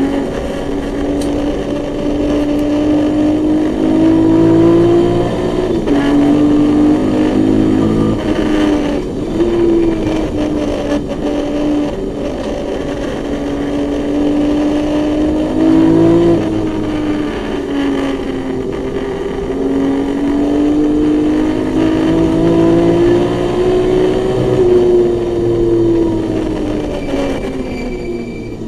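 A BMW E21 race car's naturally aspirated 2.7-litre M20 straight-six, heard from inside the cabin under hard acceleration. The pitch climbs steadily and drops sharply about 6, 8 and 16 seconds in, then falls away near the end.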